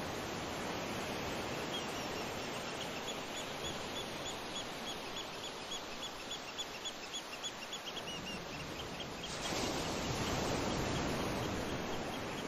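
Steady rushing noise, with a quick run of short, high bird-like chirps, several a second, from about two to nine seconds in. About nine seconds in the rushing gets louder and fuller, the sound of the flood-swollen Seti River running fast.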